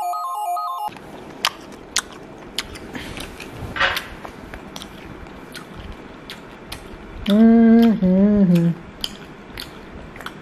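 A short electronic music jingle stops abruptly about a second in. Then come scattered sharp clicks and taps of someone eating from a plate, with chewing. A brief two-part hummed voice sound comes about three quarters of the way through.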